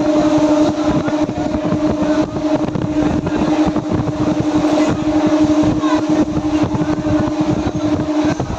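Passenger train running at speed, heard from inside the carriage at an open barred window: a loud, steady rumble and rush from the wheels and track. A held droning tone runs over it and stops shortly before the end.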